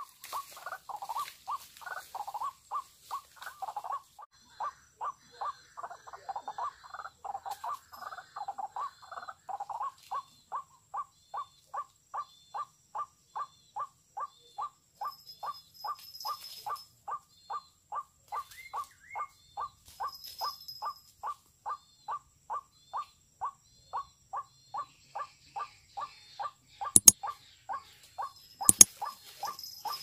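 White-breasted waterhen calls: short 'ruak' notes repeated about two to three times a second, crowded and overlapping at first, then settling into a steady, even series. A few loud sharp clicks or knocks come near the end.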